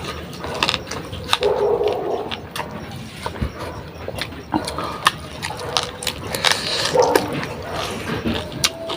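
Close-up eating sounds: wet chewing and lip smacks, with irregular sharp clicks and a few short hums.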